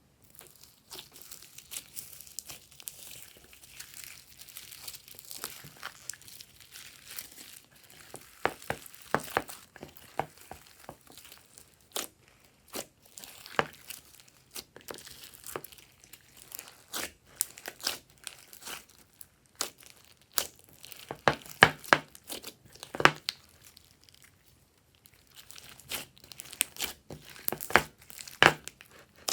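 Glossy slime being squished and stretched by hand: a soft crinkling crackle at first, then many sharp clicks and pops as air pockets burst in the slime.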